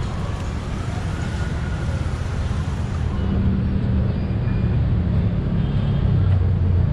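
Busy city street ambience: a steady low traffic rumble that grows slightly louder toward the end.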